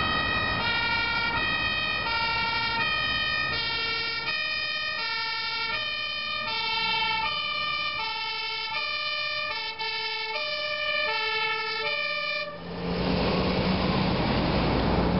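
Dutch fire engine's two-tone siren, switching back and forth between a high and a low note over motorway traffic. About twelve seconds in the siren cuts off, and the engine and tyre noise of the fire truck passing close takes over.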